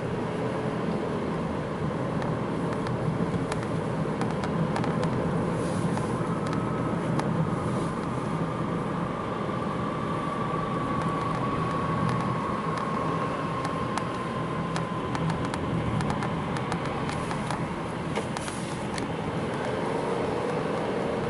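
Nissan X-Trail slowing from about 60 to 50 km/h: over steady road and tyre noise, a quiet whistle slowly falls in pitch for about ten seconds, like a falling bomb. The whistle is heard in both 2WD and 4WD mode and in both D and N, so its cause is not yet known.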